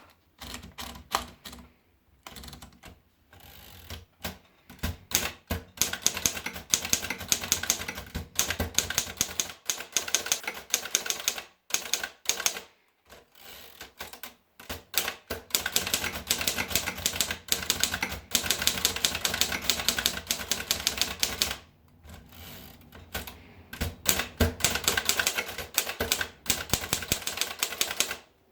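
Underwood four-bank portable typewriter being typed on: quick runs of key strikes, with a few slower, scattered strokes at first and short pauses between runs.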